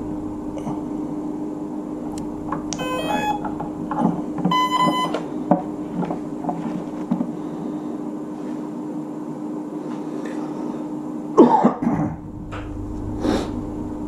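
Brushless motor's ESC sounding its power-up tones as the LiPo battery is plugged in: a quick rising run of beeps about three seconds in, then one longer beep about a second and a half later, the ESC's arming signal. Clicks and knocks of the connector and wiring being handled, louder about eleven seconds in.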